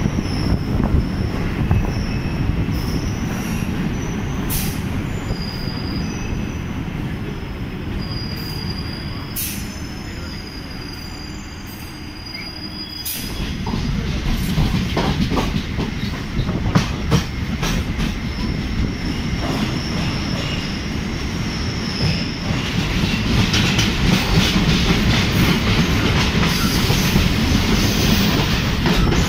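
Chennai MRTS electric suburban train heard from on board, rolling along the track with a steady rumble. High-pitched wheel squeal comes and goes, with scattered clicks from the rails. The sound eases off about twelve seconds in, then builds again.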